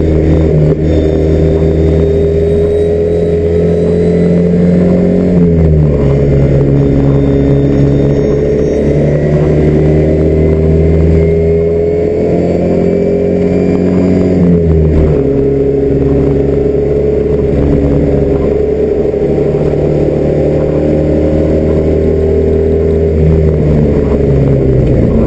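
Alfa Romeo Alfetta GTV 2000's Spica-injected twin-cam four-cylinder engine heard from inside the cabin under racing load, its pitch climbing through each gear and dropping at the upshifts, clearest about five and fifteen seconds in and again near the end.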